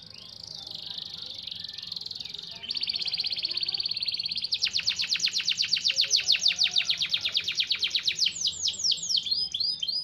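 Canary singing: a high warbling phrase that becomes a quicker trill, then from about four and a half seconds a loud, rapid rolling trill of evenly repeated notes. Near the end the trill changes into slower, downward-sweeping notes.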